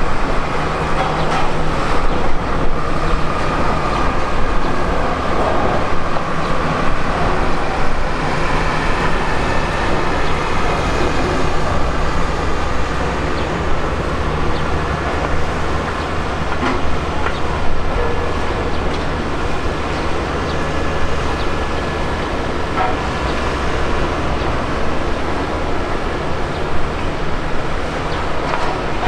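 Jet aircraft engines running, a loud steady rush with a faint high whine held throughout.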